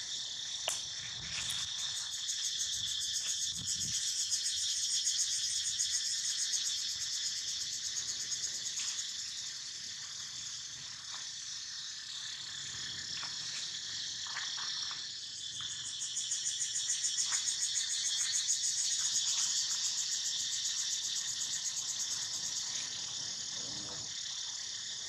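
Chorus of insects buzzing high-pitched and unbroken, with a fast pulsing texture, swelling louder twice and easing off between.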